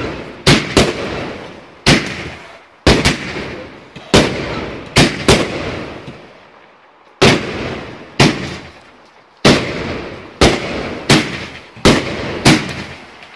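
Aerial fireworks bursting overhead: a rapid series of loud bangs, roughly one a second, each tailing off. There is a short lull about six seconds in, then a quicker run of bangs near the end.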